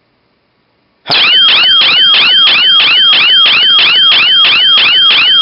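12-volt electronic siren of a DIY laser-and-sound security module, set off by its audio detection. About a second in it starts a loud, rapidly repeating warble of about four sweeps a second.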